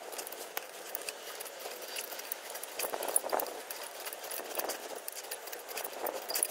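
Ratchet wrench clicking in short, irregular strokes as the tight alternator mounting bolt is worked loose, with light metal clinks from the socket and tools.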